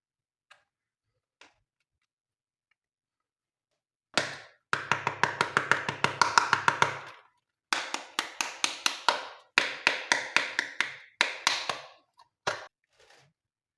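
Glossy slime being pressed and worked by hand, giving runs of sharp clicking pops at about five a second in several bursts with short breaks, starting about four seconds in.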